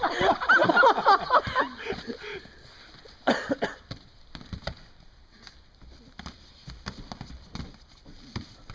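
Excited yelling and whooping from onlookers for the first second or two, then scattered thuds and scuffling of two fighters grappling on the grass, with one louder burst about three seconds in.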